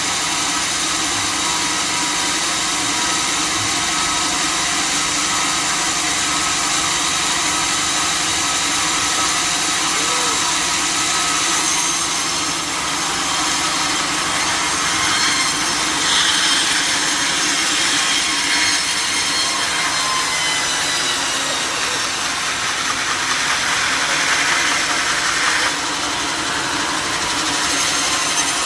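Sawmill saw running steadily and cutting through a log, a loud continuous machine whine with the hiss of the blade in the wood.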